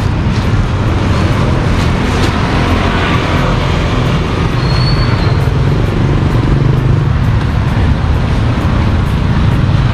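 Street traffic: motorbikes and cars passing on the road, a steady rumble, with a brief high tone about five seconds in.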